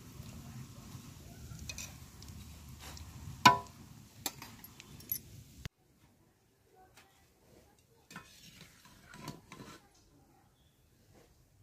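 Metal tongs clinking and scraping against an iron kadai as badusha fry in hot oil, over a low sizzling hiss; one sharp, ringing clink about three and a half seconds in. After about six seconds the sound drops much quieter, leaving only a few light taps.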